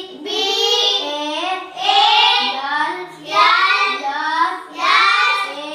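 A child's voice chanting in a sing-song: about five short phrases in a row, reciting flower names from a chart.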